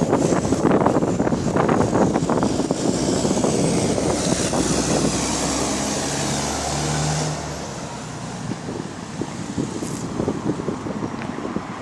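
Bus engine running loudly with the noise of a leaking exhaust. A steady low engine note comes through midway, then the sound drops off about two-thirds of the way in as the bus moves away.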